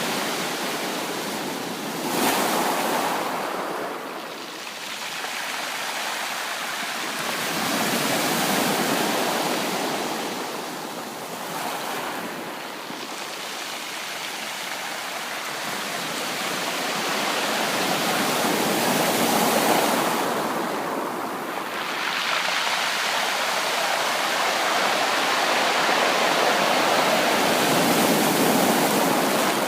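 Sea waves breaking and washing onto a shore, a continuous rushing surf that swells and ebbs every several seconds, with a sharper crash about two seconds in.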